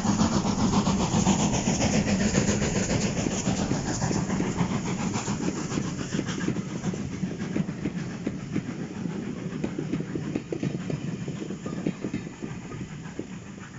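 Steam locomotive working a train of passenger coaches passes close by and draws away. The chuffing exhaust and the clatter of the coaches on the rails fade steadily as it recedes.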